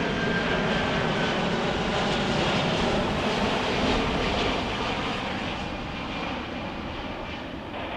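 Jet airliner engines running as the plane passes: a loud, steady rush with a faint whine, easing off a little in the second half.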